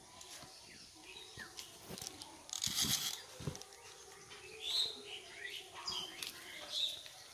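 Small birds chirping in short, scattered calls, with a brief rustle about three seconds in.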